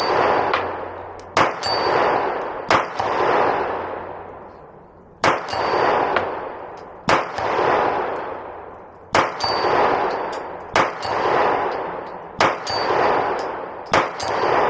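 Slow, deliberate 9mm shots from a Glock 26 pistol, about nine of them spaced a second and a half to two and a half seconds apart. Each shot is followed by a long metallic ringing as the steel plate target at 50 yards is struck and rings out.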